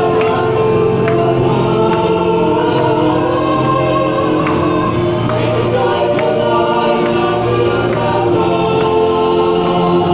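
Samoan church choir singing a hymn in several-part harmony, the voices holding long chords.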